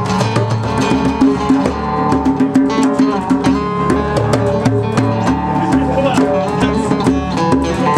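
Band playing an instrumental passage: guitar over drums, with no singing.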